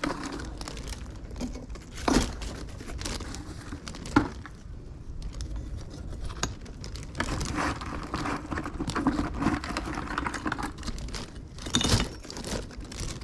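A bag rustling and crinkling as metal finds are handled, with a few sharp knocks.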